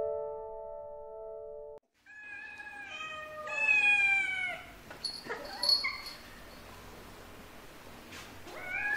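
A held musical note fades out, then a cat meows several times in a row, the longest call falling in pitch. A few weaker meows follow, and a short rising meow comes near the end.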